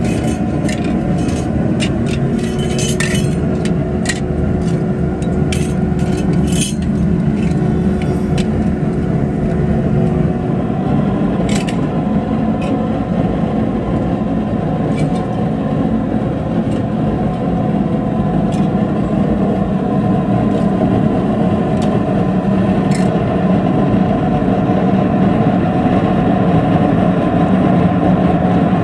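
Steady rumble of a pit melting furnace blasted by its electric air blower, the fire burning hard. Pieces of scrap metal clink and clatter against each other during the first several seconds and once more about twelve seconds in.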